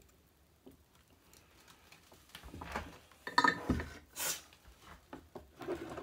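Light clicks and rustles of hands handling tools and wiring on a wooden workbench, with a few sharper knocks about three and a half seconds in and a brief hiss just after.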